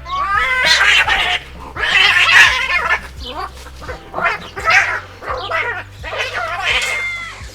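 Kittens meowing: a run of about eight loud cries in quick succession, some of them harsh.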